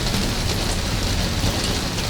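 Steady rain falling, a dense even patter with sharper individual drops scattered through it.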